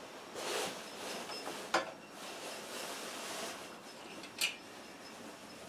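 Faint hand-handling of small engine parts and tools: soft rubbing and rustling, with two light clicks.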